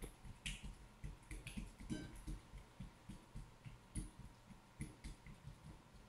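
Clear glitter slime being pressed and squished flat by hand on a glass plate, making many small, irregular sticky clicks and pops.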